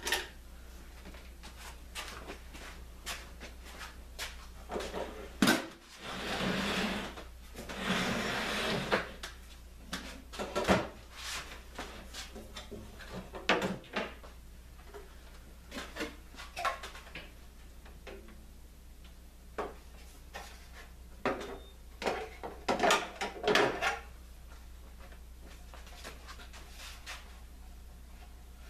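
Unpacking and handling sounds: scattered knocks and clacks of plastic parts and packaging set down on a wooden bench. There are two stretches of rustling packaging about six and eight seconds in.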